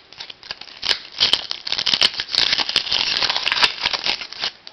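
Foil wrapper of a Topps Chrome trading-card pack crinkling as it is torn open by hand: a dense crackle that builds about a second in and stops near the end.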